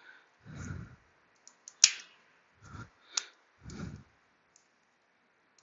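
Sharp metallic clicks from hose clamp pliers working a spring hose clamp on a coolant hose: two loud clicks about a second and a half apart and a few fainter ticks, between soft low handling noises.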